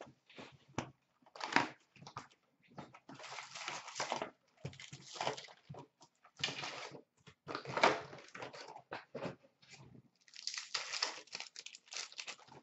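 Hockey card box and packs being handled and torn open: irregular rustling, crinkling and tearing of cardboard and pack wrappers, with sharp rips about one and a half and eight seconds in.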